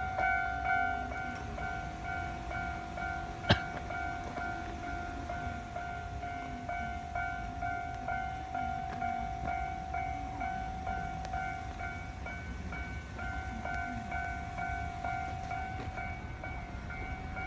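Japanese level-crossing warning bell ringing steadily, a repeating electronic alarm tone, over a low rumble. A single sharp click comes about three and a half seconds in.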